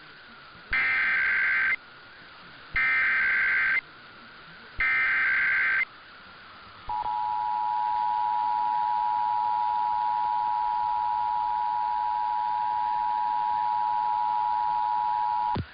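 Emergency Alert System header announcing an alert test: three bursts of warbling digital SAME data tones, about a second each, then the EAS two-tone attention signal (853 and 960 Hz together), a steady dual-pitched tone held for about eight and a half seconds that cuts off suddenly.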